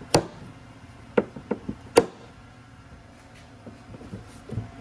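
Plastic cooler knocking and clacking as it is handled and rocked in homemade steel tab mounts, the slight play between the tabs and the cooler's holes letting it shift. About five sharp knocks come in the first two seconds, then a pause, then more knocks near the end.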